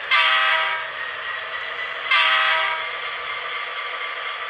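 Two short horn blasts, about two seconds apart, from the Paragon 2 sound decoder of an HO BLI SD40-2 model diesel locomotive, played through its small onboard speaker; two blasts is the signal to move forward. Under them runs the steady sound of the idling diesel engine.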